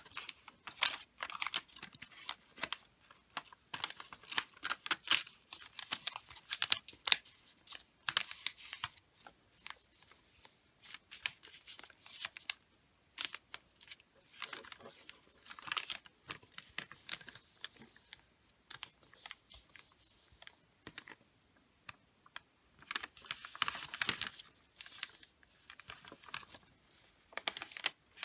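Wrapping paper rustling and crackling as hands fold, crease and tuck it, in irregular clusters of sharp crackles with short pauses between.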